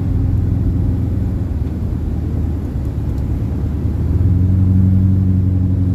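Engine and road noise of a moving vehicle heard from inside the cab, a low steady drone; the engine note grows stronger about four seconds in.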